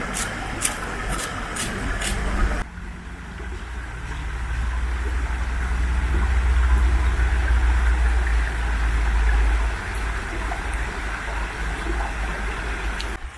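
A hand-held spice grinder being twisted in quick, evenly spaced grinding clicks, stopping abruptly about two and a half seconds in. After that, a low, uneven rumble of wind on the microphone over a steady hiss of a small stream.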